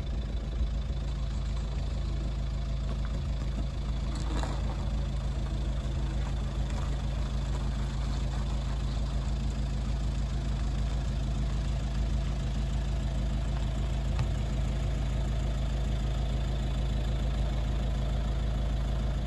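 A motor vehicle's engine running steadily: a low, even rumble with a steady hum.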